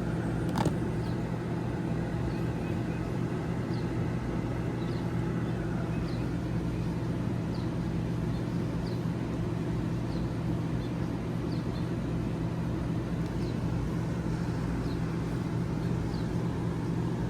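Steady low mechanical hum of a running motor or engine, with a single sharp click just under a second in and faint short high chirps repeating about once a second.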